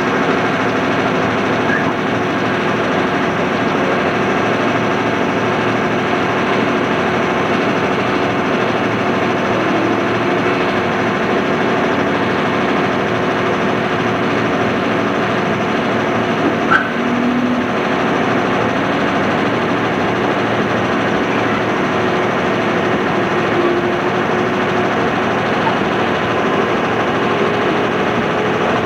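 Steady interior hum and rumble inside a JR East 211 series electric train carriage, an even noise with steady machine hum and no distinct wheel clatter, recorded on cassette tape.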